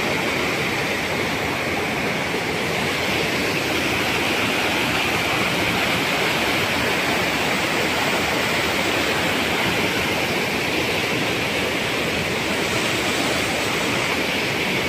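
Steady rushing of a waterfall cascading over rocks, close by and unbroken.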